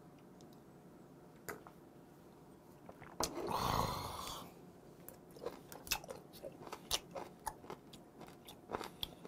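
A quiet sip from a shot of liquor, then about three seconds in a short breathy hiss of an exhale through clenched teeth after the drink. From about five seconds on, close-miked chewing of raw abalone innards, a run of short wet clicking and crunching mouth sounds.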